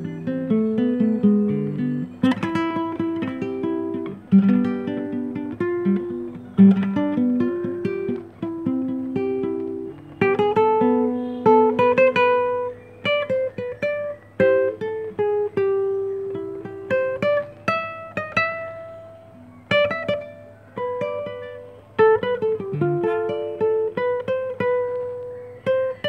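Solo acoustic guitar played fingerstyle: a slow melody of single plucked notes over bass notes, each note left to ring and fade.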